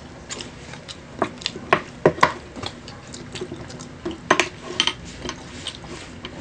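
Plastic spoons tapping and scraping against small dipping cups and a glass sauce bowl as street food is dipped in sauce: a string of irregular light clicks, with a few louder knocks about two seconds in and again past four seconds.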